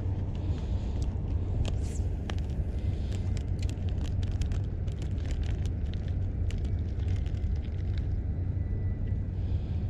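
Small sharp clicks and ticks from unhooking a small fish by hand, gloved fingers working the hook and line, over a steady low rumble.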